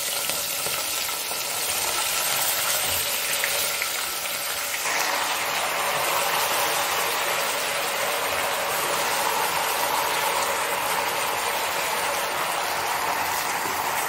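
Raw mutton pieces sizzling and crackling as they fry in hot oil with whole spices in a pressure cooker, a steady hiss that grows louder from about five seconds in as more meat goes into the oil.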